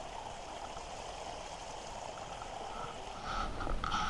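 Steady rushing noise with no clear rhythm, with a few faint short tones near the end.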